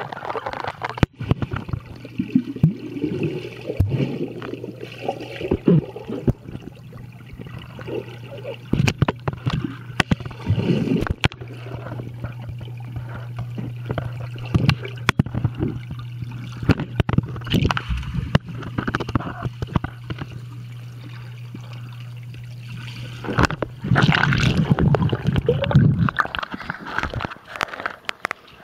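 Muffled underwater sound in a swimming pool: gurgling, scattered clicks and knocks over a steady low hum. Louder sloshing and bubbling comes in near the end.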